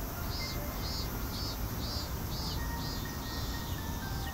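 A run of short, high chirping calls repeating about twice a second over a steady low outdoor rumble.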